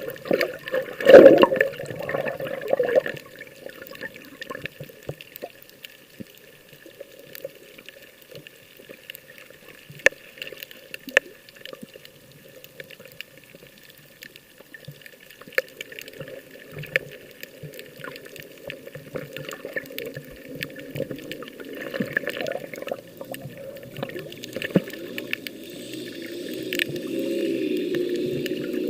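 Sea water sloshing and splashing, with a louder splash about a second in and the water noise building up towards the end.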